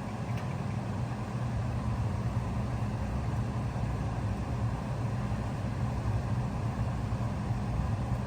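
2019 Bard 5-ton wall-hung heat pump running in cooling mode: a steady low hum of the compressor and fan.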